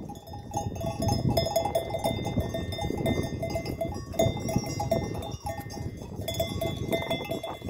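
Bells on a grazing flock of sheep clinking and ringing irregularly, over wind rumbling on the microphone.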